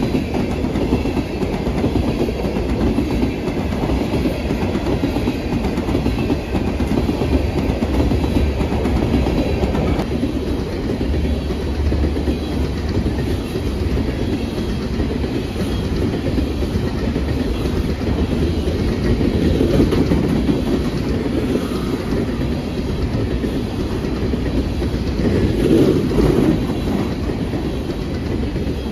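A long freight train's cars rolling steadily past close by, steel wheels rumbling and clacking over the rail joints. The noise swells briefly twice in the latter part.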